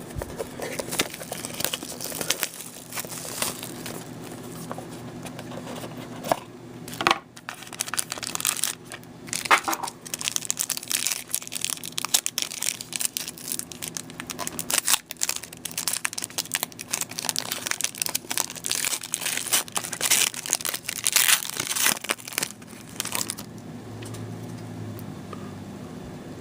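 Trading-card pack wrapper being torn open and crinkled, a long run of crackling rustles and short tearing sounds that dies down near the end.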